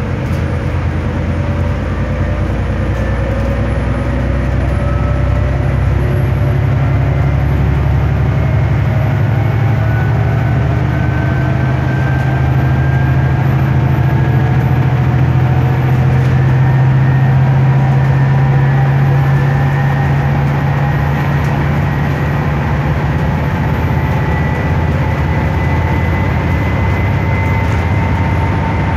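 Inside a bus travelling at speed: the steady drone of the engine and road noise, with a faint whine that climbs slowly in pitch as the bus gathers speed and then holds level.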